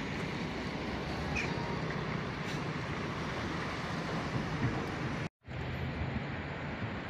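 Steady city traffic noise. The sound drops out completely for a moment about five seconds in.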